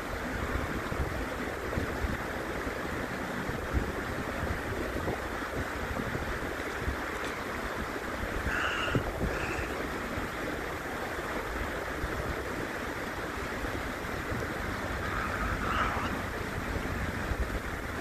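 Steady rushing of shallow stream water. A few short, higher sounds cut through it, two about halfway through and one near the end.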